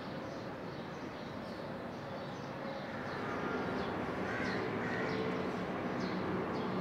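Outdoor city ambience: birds chirping in many short, quick calls over a steady background hum, which grows a little louder about three seconds in.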